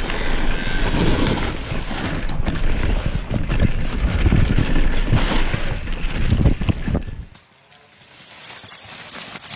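Mountain bike descending a forest singletrack, heard from a camera on the bike: tyres rolling over dirt and dry leaves, with a steady rumble and many knocks and rattles over bumps. About seven seconds in the sound drops away suddenly to a much quieter passage.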